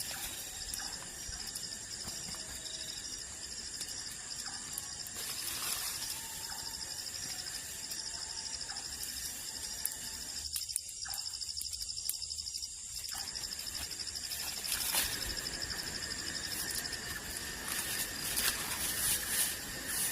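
Forest insects trilling steadily in high, unbroken tones, with scattered light clicks near the end.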